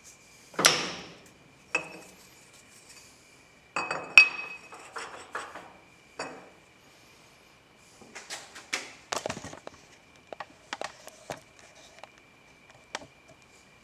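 Heavy metal lathe chuck backing plate being worked onto and off the lathe spindle-nose taper: scattered metal-on-metal clunks, clinks and short scrapes. The loudest knock comes near the start, another about four seconds in, and a run of smaller clinks follows later.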